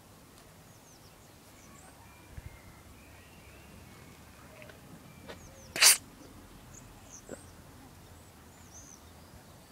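A cat sneezing once, short and sharp, about six seconds in. Faint bird chirps sound in the background.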